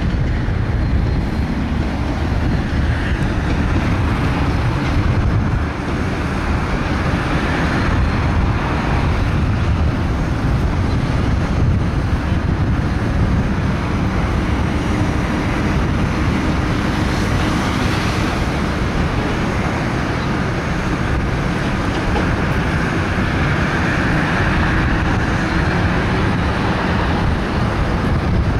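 Steady low rumble of a diesel-hauled train moving slowly away through a rail yard, blended with traffic noise.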